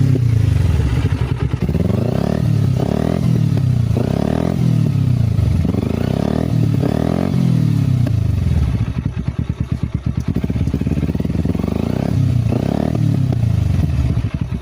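Carburetted Kawasaki Ninja 250 parallel-twin engine blipped up and down repeatedly, then settling to an even idle with one more blip near the end. The owner says it is running on one cylinder, with little power.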